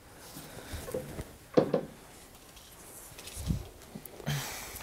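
Quiet handling noise around a hi-fi component being set on its rack and unwrapped: faint rustling of the protective wrapping, with a dull low thump about three and a half seconds in.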